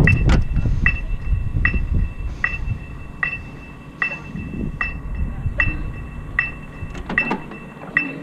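An electronic metronome beeping at a steady tempo, about one beat every 0.8 seconds, over a low rumble on the microphone that is loudest at the start. A short clatter comes near the end.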